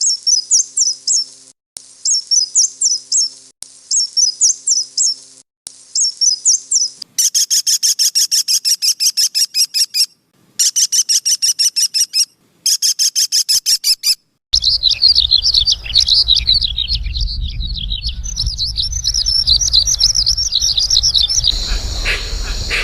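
Several different birds calling in turn. First comes a high song phrase repeated four times, then rapid strings of sharp repeated calls in three bursts, then about seven seconds of continuous high warbling over a low wind rumble, with another sound starting near the end.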